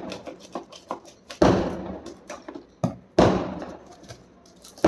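Product packaging being torn and pulled open by hand: three loud sudden rips, each trailing off over about a second, with small crackles and clicks of handling in between.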